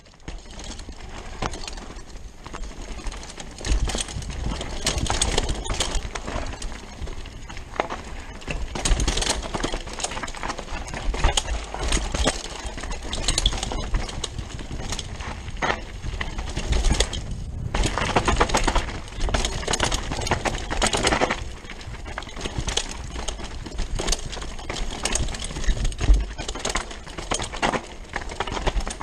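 Rockrider 540 ST hardtail mountain bike rattling and clattering at speed down a rough dirt trail, a fast irregular stream of knocks from the tyres and frame over roots and stones, with wind rumbling on the camera microphone.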